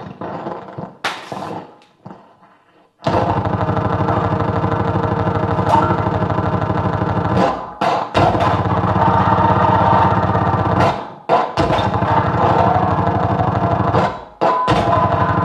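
Harsh experimental noise from a tabletop rig of distortion pedals, feedback and amplified objects. It begins with sparse scratchy sounds and a brief hiss, then about three seconds in a dense wall of heavily distorted noise with a fast rough pulse kicks in, cutting out abruptly for a moment several times.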